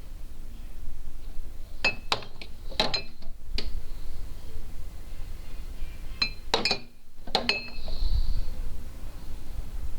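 Glass bottles and jars knocking and clinking together as they are handled, in two bursts of strikes, about two seconds in and again about six seconds in, some leaving a short ringing tone.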